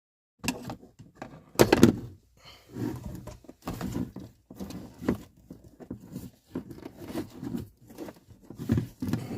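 Irregular knocks, thunks and rustling from parts being handled, loudest about one and a half seconds in.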